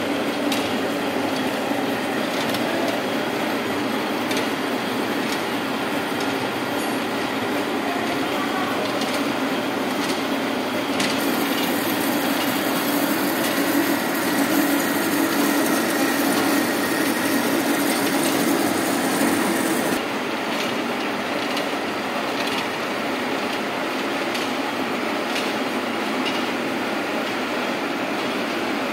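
Large heavy-duty engine lathe running: its headstock gearing and spindle keep up a steady mechanical clatter and hum. About eleven seconds in, the sound grows louder and brighter as the boring tool cuts inside the spinning workpiece, then it drops back about twenty seconds in.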